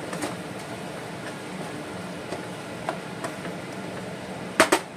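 A cooking spoon stirring fenugreek leaves and potatoes in a pan, with a few light clinks against the pan over a steady low hum. Two sharp knocks come close together near the end.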